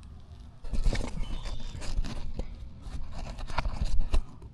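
Irregular knocks, scrapes and low thumps of handling as a freshly caught bass is landed and taken in hand, starting about a second in and stopping shortly before the end.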